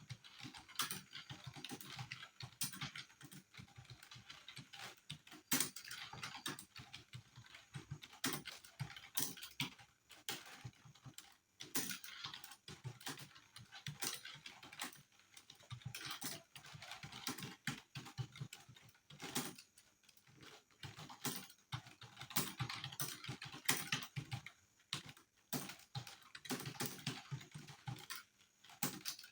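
Fast, continuous typing on a computer keyboard during a timed typing test: a dense, irregular run of key clicks, with a couple of brief pauses.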